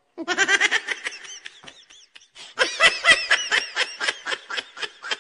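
A voice laughing in quick repeated 'ha-ha' bursts, in two runs: the first fades out, and the second starts about halfway through. It sounds like a laughter sound effect.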